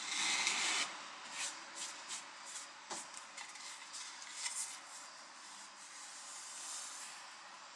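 Laminated chipboard panels being handled: a scrape of board sliding over board in the first second, then lighter rubbing and a few small knocks as the panels are lifted and moved.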